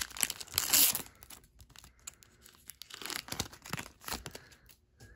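A foil Pokémon booster pack wrapper being torn open from the bottom: a loud rip in the first second, then quieter crinkling of the wrapper as the cards are slid out.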